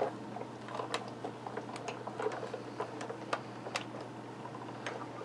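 Big Shot hand-cranked die-cutting and embossing machine turning, drawing an embossing folder and cutting plate through its rollers, with scattered light clicks and knocks.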